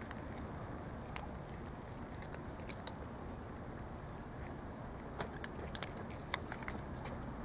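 Cats crunching dry kibble: irregular crisp crunches, coming more often in the second half, over a steady low background noise.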